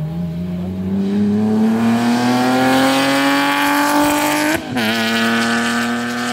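Race car engine at full throttle on a hill climb, its pitch rising steadily, then an upshift about four and a half seconds in, with a short break and a drop in pitch, before it pulls again.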